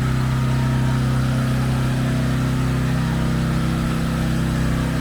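A motor vehicle's engine idling, a steady, even hum.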